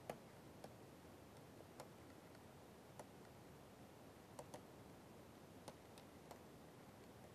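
Faint, irregular clicks of a stylus tapping on a pen tablet while handwriting, over near silence; the clearest click comes just at the start.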